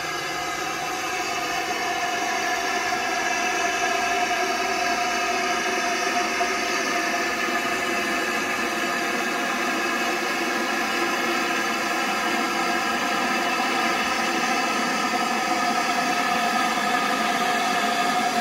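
BR Standard Class 5 4-6-0 steam locomotive moving slowly up to the platform, giving off a steady hiss of escaping steam with a ringing, whining tone over it, slowly growing louder as it draws near.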